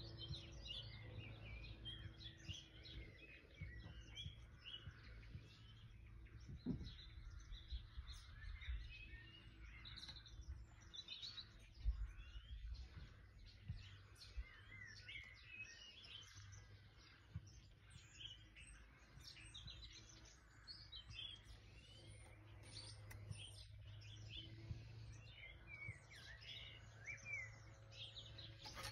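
Faint songbirds chirping and trilling, many short calls overlapping throughout, over a steady low hum, with a few low thumps.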